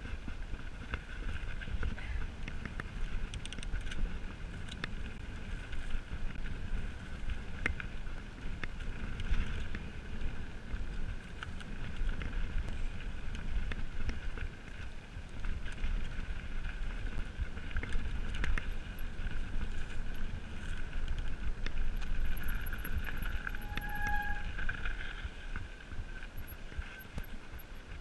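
Mountain bike riding fast down a dirt singletrack: wind rumbling on the camera's microphone, tyres on dirt, the bike rattling and clicking over bumps, and a steady high whir throughout.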